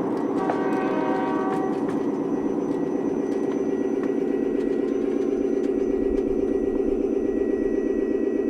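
Miniature railway train running with a steady, evenly pulsing drone. About half a second in, a pitched tone sounds for a second or so. The sound cuts off suddenly near the end.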